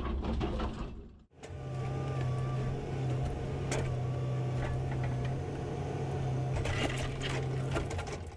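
Cat 312CL excavator's diesel engine and hydraulics running steadily, with a low hum, a faint higher whine and a few knocks. The sound drops out briefly about a second in, then carries on.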